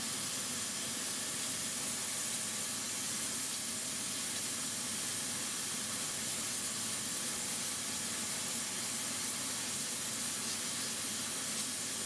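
Vacuum cleaner running steadily while it sucks air into a car's exhaust pipe through holes in the muffler joint, heard as an even, unchanging hiss of rushing air.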